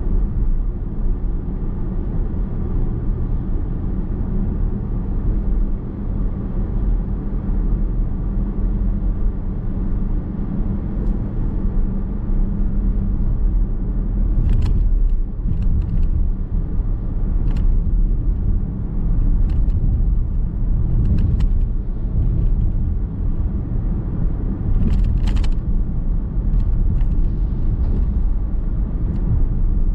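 Car road noise heard inside the cabin while driving: a steady low rumble of tyres and engine hum. From about halfway through, a few irregular sharp clicks or ticks sound over it.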